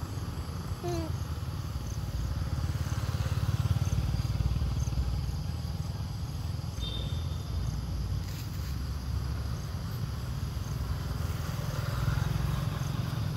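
A steady low rumble of outdoor background noise, swelling a little about four seconds in and again near the end.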